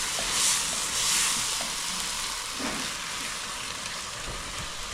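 Chicken and tomato sizzling in a cooking pot: a steady frying hiss that swells a couple of times early on.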